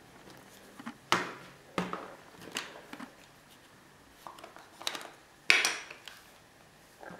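Camera gear being handled and set down on a tabletop: a lens in its plastic reverse-ring holder and a DSLR body. Several sharp knocks and clacks of hard plastic and metal, the loudest about five and a half seconds in.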